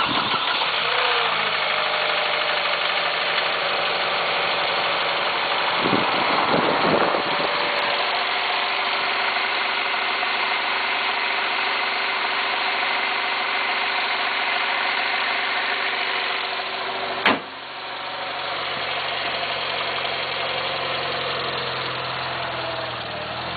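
Vauxhall Vectra's engine idling steadily with the bonnet open. A single sharp knock about 17 seconds in.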